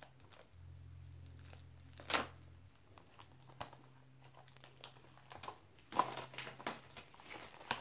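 Plastic shrink-wrap being cut and peeled off a Blu-ray case: scattered light crinkles, a sharp snap about two seconds in, then a denser run of crinkling and tearing of the film near the end.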